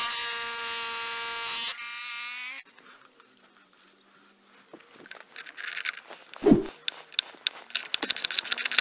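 DeWalt SDS drill running in the bolt hole through the timber post, a steady whine that drops to a weaker tone just under two seconds in and stops about a second later. After a pause, a socket ratchet clicks rapidly as a bolt is turned in, with one dull thump about six and a half seconds in.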